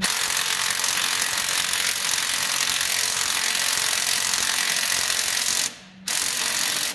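A power wrench runs continuously with a dense rattle, driving a bolt that is still turning and not yet seated. It stops briefly near the end, then runs again.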